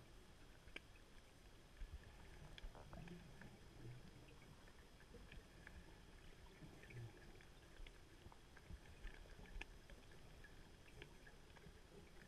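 Near silence: a faint, muffled underwater background with scattered faint clicks and a few soft low rumbles.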